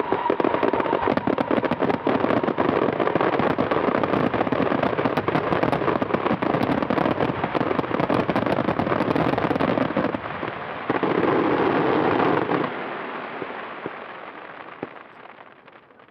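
Fireworks finale: a dense, continuous barrage of shell bursts and crackling. A last, heavier volley cuts off abruptly about three-quarters of the way through, then scattered crackles fade away.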